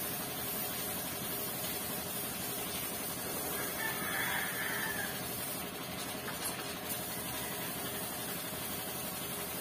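A rooster crows once, about four seconds in, over steady background noise.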